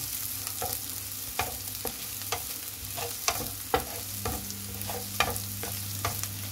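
Chopped garlic, onion and ginger sizzling in oil in a frying pan, stirred with a wooden spatula that scrapes and taps against the pan about twice a second.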